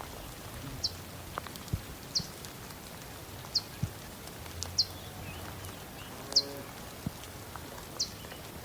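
Steady rain hiss with a bird repeating a short, high, falling chirp about every second and a half, and a few scattered drips or knocks.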